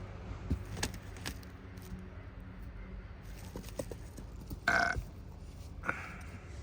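A short, loud, throaty burp-like vocal sound about two-thirds of the way through, with a weaker one just after, over a low rumble and a few faint clicks.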